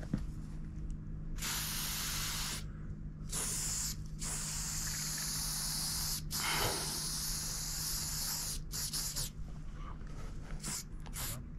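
Aerosol spray paint can hissing in a series of sprays as a graffiti letter is filled in: several longer sprays of a second or two, then quick short puffs near the end.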